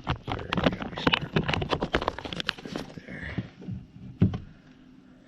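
Rapid clicks, taps and small knocks of valve-job parts and tools being handled while valve lapping compound goes on. They thin out after about three seconds, with one sharper knock a little past four seconds.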